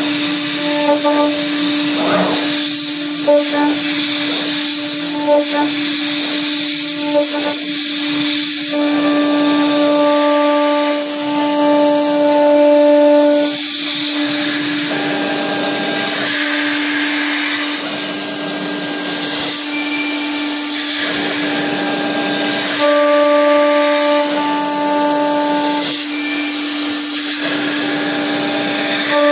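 CNC milling machine cutting aluminium: the spindle runs with a steady hum while an end mill bites into the metal, adding a higher ringing tone that comes and goes with each pass of a few seconds. A steady air hiss from the Fogbuster mist coolant runs underneath.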